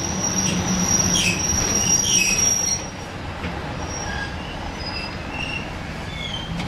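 Street tram running along the rails: a steady low rumble of the wheels and running gear, with a thin high-pitched wheel squeal over it. The squeal holds for nearly three seconds, then the sound drops a little and leaves only short scattered squeaks.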